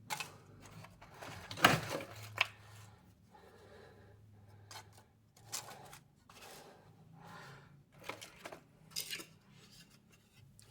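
Thin wooden sticks being set in place on a campfire lay, with scattered light knocks and rustles of wood on wood; the loudest knock comes nearly two seconds in.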